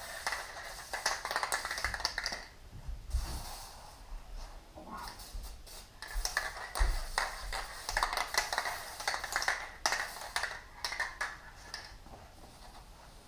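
Shop towel wiping freshly sprayed lubricant across the jointer's metal bed, a crackly rubbing in two spells separated by a quieter pause.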